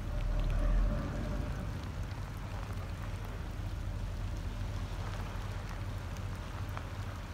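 Harbour ambience: a steady low rumble of ship machinery with a fine, pattering hiss over it. The rumble swells briefly in the first second.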